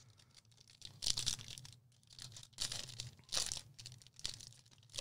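Foil wrapper of a Topps Chrome Black trading card pack being torn open and crinkled by hand, in several short bursts.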